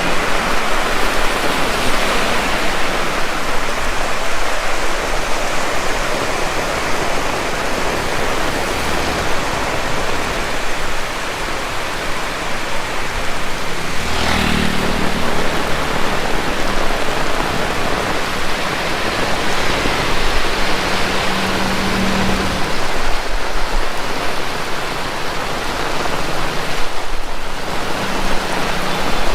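Heavy rain pouring down in a steady, loud hiss. A low hum rises briefly a little before the middle and again later on.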